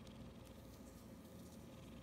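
Near silence: quiet room tone with a low hum and faint, soft high ticks.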